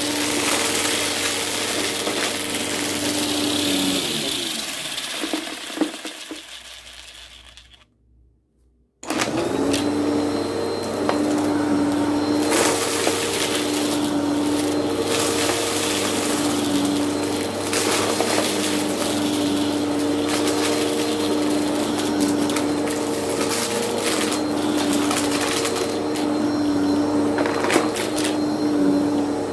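Bissell CleanView upright vacuum running on carpet, with a steady motor hum and scattered crackles and pops as it sucks up small crunchy debris. About four seconds in the motor winds down, falling in pitch and fading out, and it is running again from about nine seconds in.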